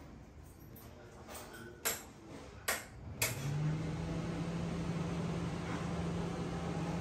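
Three clicks of a wall switch panel, then a kitchen chimney hood's fan motor starts a little after three seconds in and runs with a steady hum.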